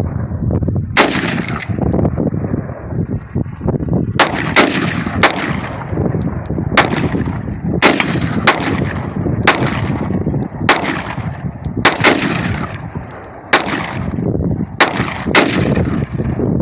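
AR-15 rifle firing a string of about fourteen single shots at an uneven pace, mostly a second or so apart, each sharp crack followed by a short echo.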